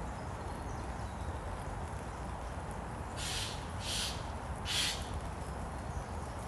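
Steady rainfall, with three short hissing splashes about two-thirds of a second apart a little past the middle.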